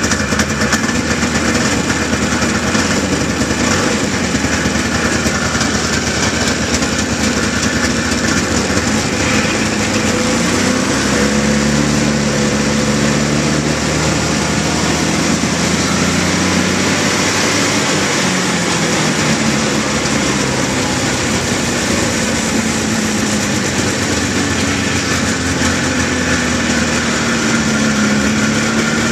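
1976 John Deere 340 Cyclone snowmobile's Kioritz two-stroke engine running after a cold start, its pitch rising and falling as the engine speed changes.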